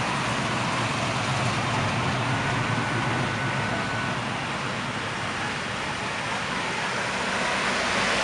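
Classic American cars driving slowly past one after another, a first-generation Chevrolet Camaro and then a late-1950s Cadillac, their engines rumbling low over a steady wash of street noise. The rumble is strongest in the first few seconds.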